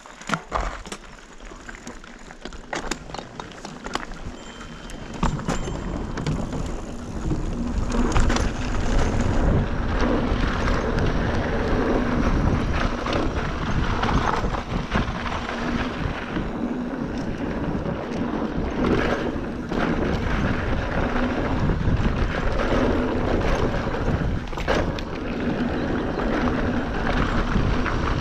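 Mountain coaster sled running down its rail: a steady rumble of wheels on the track mixed with wind on the microphone. It builds over the first several seconds as the sled picks up speed, after a few sharp clicks near the start.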